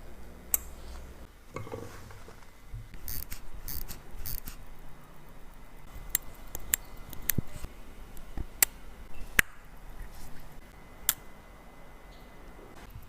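Small metal tools clicking and tapping against the parts of a mechanical watch during servicing, at an irregular pace, with a few short scraping sounds about three and four seconds in.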